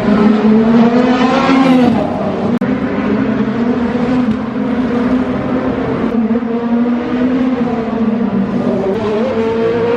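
Race car engines running hard on the circuit, a continuous high-revving engine note with several cars overlapping. The pitch rises around the first two seconds and again near the end as cars accelerate past.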